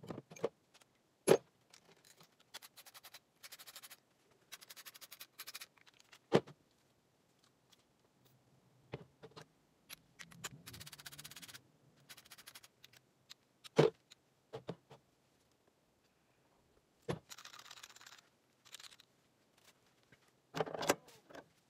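Hand socket ratchets being worked, giving several runs of fast, even clicking about a second long each, between sharp metallic clanks of steel tools set down in a metal toolbox.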